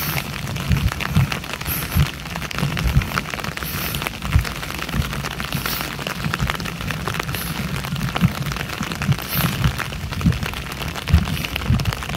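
Steady rain drumming on an umbrella close overhead: a dense patter of drops with many irregular low thuds, over rain falling on wet pavement.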